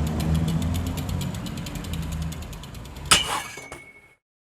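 A BMX bike's rear hub ratcheting with rapid, even clicks over a low rolling rumble as the wheel freewheels, fading away. Just after three seconds a sharp metallic clank with a brief ring, then silence.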